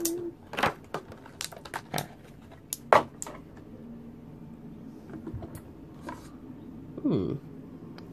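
Plastic clicks, taps and rustling as a boxed action figure and its plastic packaging are handled: a quick run of clicks in the first few seconds, with the loudest knock about three seconds in. A brief falling squeak comes near the end.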